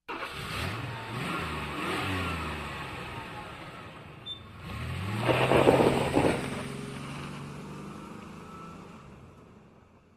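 Car engine starting and pulling away, its pitch repeatedly rising and dropping back as it accelerates through the gears. The loudest surge comes about five and a half seconds in, then the engine fades away into the distance.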